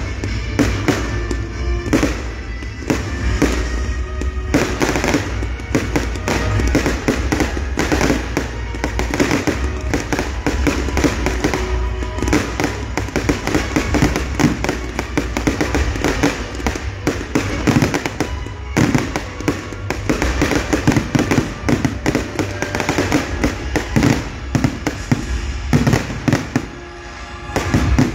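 Fireworks display: a dense, continuous string of bangs and crackles from shells and ground pyrotechnics, played against a music soundtrack, easing briefly near the end.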